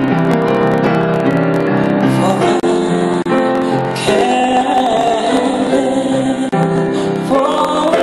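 A woman singing into a microphone, accompanied on a grand piano; about halfway through she holds a long note with vibrato.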